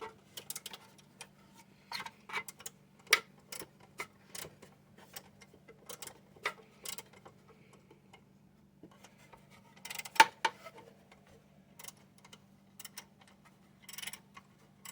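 Irregular small clicks and taps of hand tools against metal fare-box parts as nuts and screws are tightened. The loudest clicks come about three seconds and ten seconds in, over a faint steady hum.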